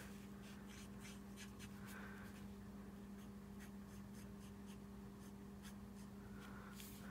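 Faint scratching and dabbing of a felt-tip color lifter (alcohol blending marker) on paper, many quick light strokes, over a steady low hum.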